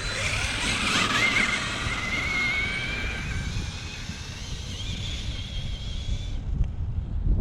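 Brushless motor and drivetrain of a 6S-powered Traxxas T-Maxx RC truck whining at speed, the pitch rising as it accelerates, before the sound cuts off about six and a half seconds in. Wind rumbles on the microphone throughout.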